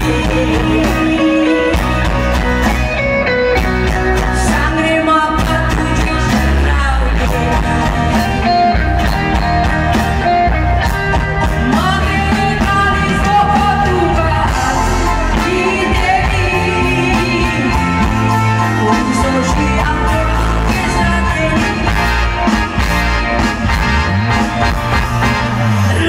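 Live rock band playing at full volume: a woman singing lead over electric guitar, bass guitar, drums and keyboards, without a break.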